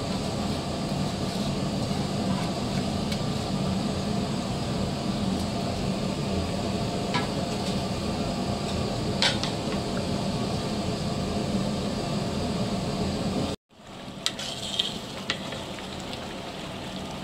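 Steady bubbling of mutton masala water boiling in a large aluminium pot with soaked rice just added, with a couple of sharp clicks. After an abrupt cut about 13 seconds in, the sound drops and a metal ladle clicks and scrapes against the pot as the rice is stirred.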